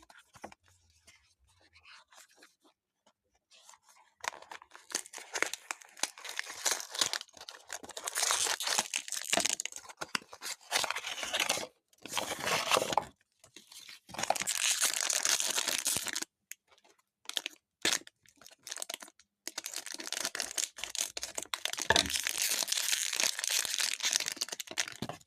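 Blind-box toy packaging being torn open and crinkled by hand: faint handling at first, then from about four seconds in repeated bursts of tearing and crinkling with short pauses between them.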